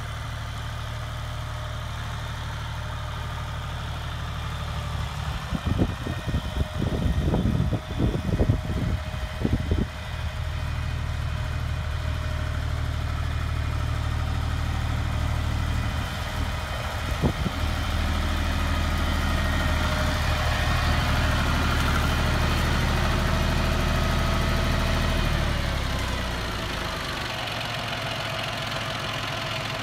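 John Deere utility tractor's diesel engine running under load while pulling a disc harrow, with a few seconds of irregular clattering about five to ten seconds in. Near the end the engine winds down to a slow idle.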